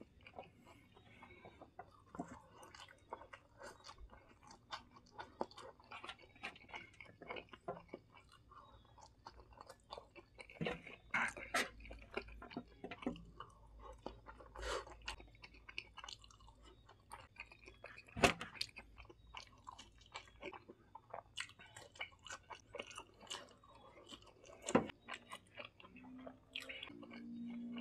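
Close-up sound of a person chewing mouthfuls of spicy instant noodles, wet mouth noises with scattered small clicks and taps, one sharper click about 18 seconds in.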